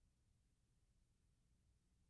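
Near silence, with only a faint, even hiss.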